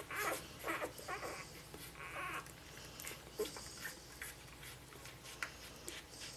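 Five-day-old golden retriever puppies nursing, with snuffling and small squeaks and whimpers. There are several short bursts in the first two and a half seconds, then it goes quieter with scattered soft clicks.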